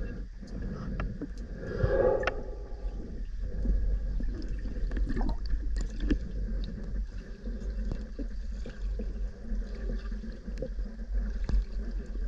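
Underwater sound of a manatee mother squeaking to her calf: one short pitched squeak about two seconds in, over a steady low rumble and scattered small clicks in the water.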